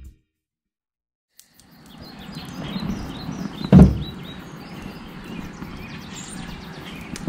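After about a second of silence, outdoor ambience comes in: birds chirping over a steady background noise. About two seconds later there is one loud, short thump.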